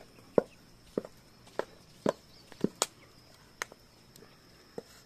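Chopping: about eight sharp knocks, roughly one every half second, with a pause of over a second near the end.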